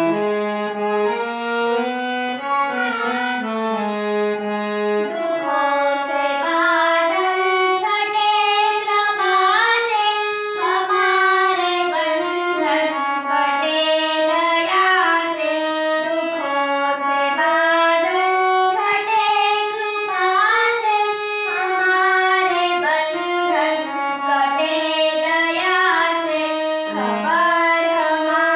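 A young girl singing a devotional prayer song in an ornamented, gliding Indian melodic style, with musical accompaniment.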